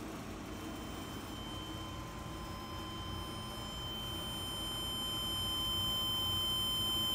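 A steady high-pitched tone from an amplifier test bench driven with a 1 kHz square-wave test signal. It starts about half a second in and slowly gets louder.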